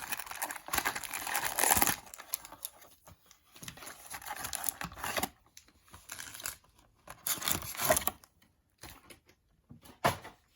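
Plastic and foil packaging of a trading card hobby box crinkling and tearing as it is opened and handled, in irregular bursts, busiest in the first two seconds, with a sharp rip near the end.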